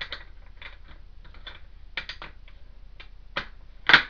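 Light, irregular clicks and taps of a flat spanner being fitted onto brass compression-fitting nuts on copper pipework, with a louder knock near the end.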